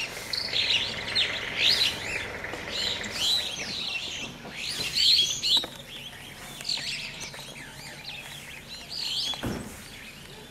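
Small birds chirping and twittering in quick, overlapping calls, busiest in the first six seconds and thinner after. A short low thump about nine and a half seconds in.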